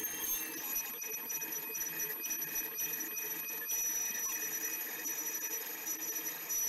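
Laguna iQ CNC router's spindle finishing its spin-up at the start of a V-carve. Its high whine rises and levels off about half a second in, then runs steadily at speed.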